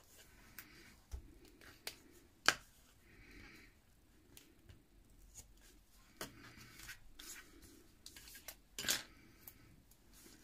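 Hands working paper and double-sided tape: rustling, short cutting or peeling strokes and small clicks, with a sharp snap about two and a half seconds in and a louder crackle near the end.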